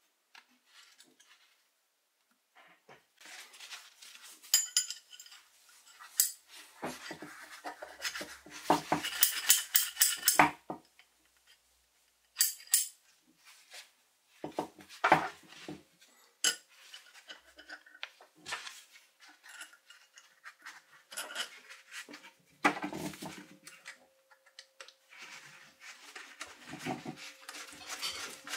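Irregular metallic clinks and clatter of hand tools being handled and set down, with a denser run of rattling clinks about a third of the way in and single knocks after it.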